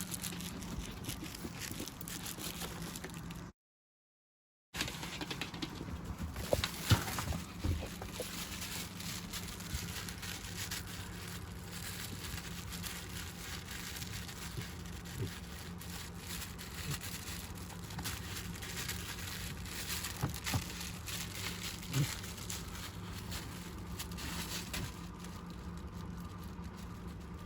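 A dog playing with a toy: scattered light knocks, taps and rustling over a steady low hum, with a brief dead gap about four seconds in.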